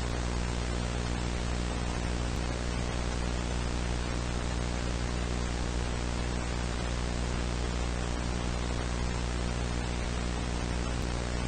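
Steady television-style static hiss with a low buzzing hum underneath, unchanging.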